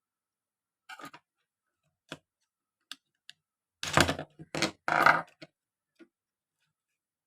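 Scattered light clicks and knocks of small objects being handled. A louder run of knocks comes about four to five and a half seconds in.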